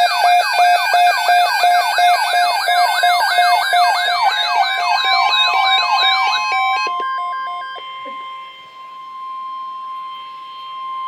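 Emergency alert siren tone sweeping up and down about three times a second, layered over other electronic alarm tones. About six and a half seconds in the sweeping stops and a steady alert tone near 1 kHz holds on, more quietly, to the end.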